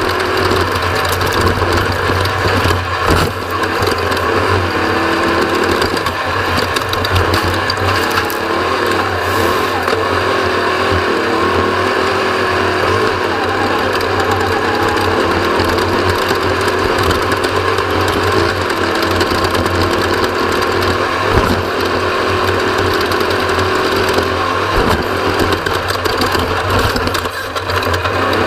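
Mountain bike ridden hard over a trail: steady mechanical rattling and clicking from the bike's chain and parts over continuous rolling noise, with a constant low hum.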